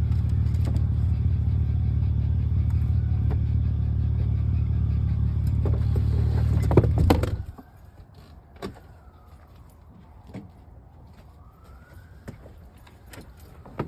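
Vehicle engine running with a steady low rumble, then switched off about seven seconds in. Afterwards there are a few clicks and a faint siren wailing in the distance.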